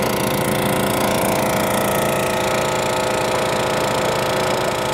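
STIHL RB 400 gas pressure washer running steadily, its small engine heard under the hiss of the spray jet washing down a mower.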